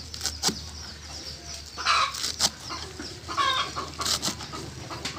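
Chickens clucking repeatedly, with a few sharp knocks of a cleaver chopping leaves on a wooden chopping block.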